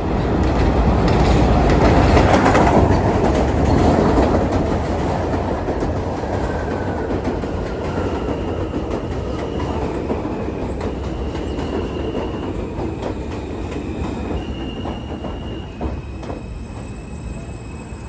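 An R160A New York City Subway train pulling into a station on an elevated steel line and braking to a stop. A loud rumble of wheels on rail fades as it slows, and from the middle on a high electric whine steps up and down in pitch.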